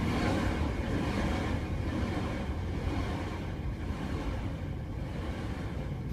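Distant rumble of the New Shepard rocket's BE-3 engine during powered ascent, a steady low roar that slowly fades.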